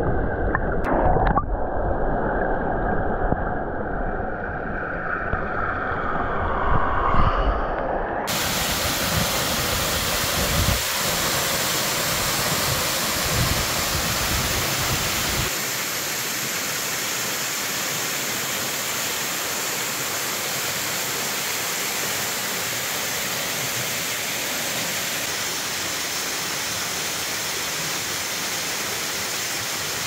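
Waterfall rushing into its plunge pool, heard from under the water at first: muffled and low, with a few knocks about a second in. After about eight seconds it opens abruptly into the full, steady hiss of falling water, which carries on to the end.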